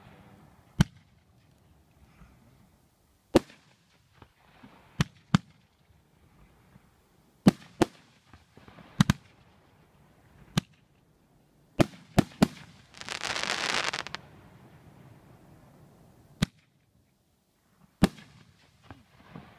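Aerial fireworks bursting: about a dozen sharp bangs at irregular intervals, some in quick pairs or triplets, with a hiss lasting about a second just past the middle.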